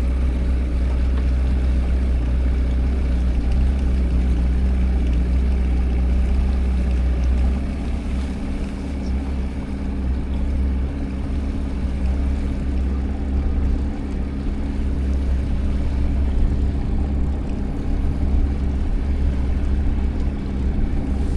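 Fishing boat's outboard motor running steadily at low speed, a continuous low drone, used to move the boat a short way faster than the trolling motor could.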